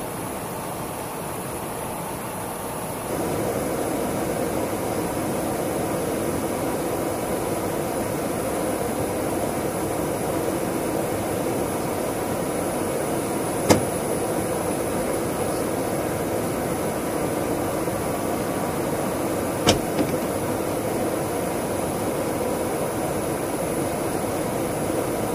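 Steady rushing noise of airflow and engines heard inside an aerial refuelling tanker at the boom operator's station. The noise steps up in level about three seconds in, and sharp clicks come about halfway through and again near three quarters of the way, the second one doubled.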